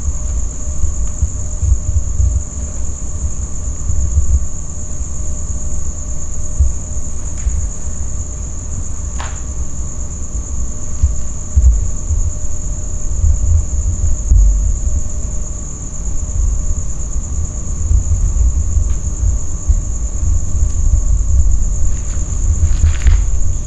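A steady, high-pitched chorus of night insects without a break, over a continuous low rumble, with a couple of faint clicks.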